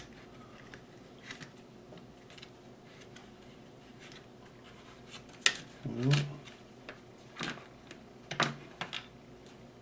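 Scattered light clicks and taps of small metal keys and tool parts being handled and tried one after another, with a sharper click about five and a half seconds in and a couple of brief mutters.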